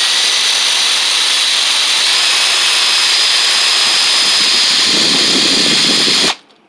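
Electric drill running at full speed, boring a rail-bolt hole into the wooden stump seat: a loud, steady high whine, with a rougher lower sound joining about five seconds in as the bit cuts deeper. The drill stops suddenly near the end.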